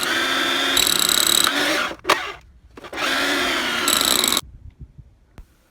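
Rotary hammer drilling through a pool's gunite floor to open a weep hole, a loud steady run with a high whine, in two runs of about two and one and a half seconds with a brief stop and a knock between them, then stopping about four and a half seconds in.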